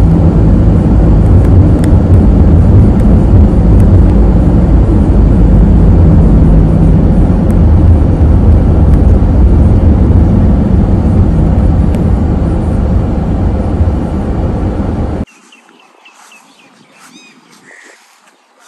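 Loud, deep road and engine noise heard from inside a moving car. About fifteen seconds in it cuts off suddenly to a quiet open-air background with a few faint bird chirps.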